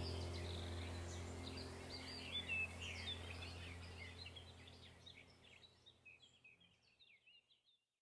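A flock of small birds chirping in many short, quick calls over a low steady hum, the whole fading out to silence about two-thirds of the way through.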